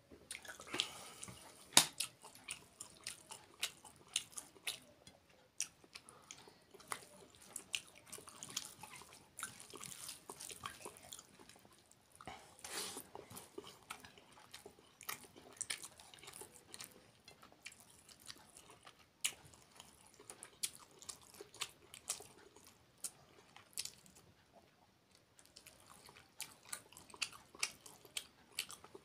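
Close-up eating sounds of a man eating rice and curry by hand: wet chewing with many sharp, irregular mouth clicks and smacks.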